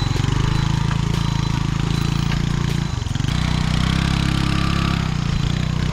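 Small scooter engine running at steady revs as the scooter climbs a rough dirt track, briefly dropping in pitch about three seconds in before picking up again.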